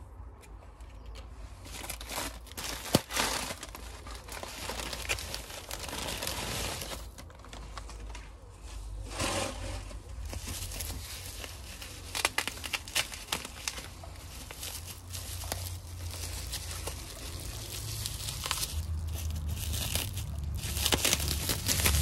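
Bubble wrap crinkling and crackling as it is handled and pulled from around a potted cactus, with a sharp crack about three seconds in.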